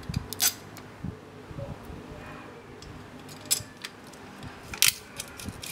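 Small metal clinks and taps from a steel bracket, bolts and nuts being fitted by hand to an angle grinder's blade guard. The three sharpest clinks come about half a second in, about three and a half seconds in and near five seconds in, with lighter ticks between.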